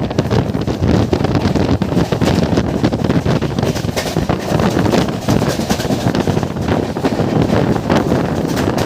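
A train running at high speed, with heavy wind buffeting the microphone over the rushing rumble of the moving train.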